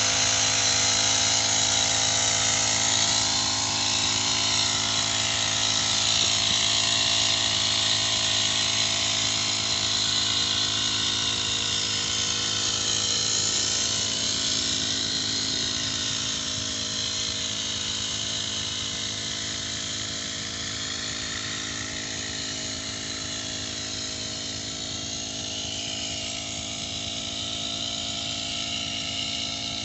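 Small engine of a backpack power sprayer running steadily at one speed, a droning whine with a strong high hiss, slowly growing fainter.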